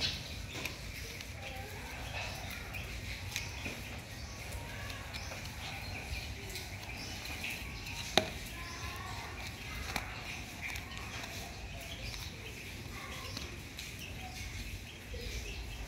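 Baby monkey moving about and handling its toys on a woven mat: light rustles and taps, with one sharp tap about eight seconds in. Under it run a steady low hum and faint scattered chirps.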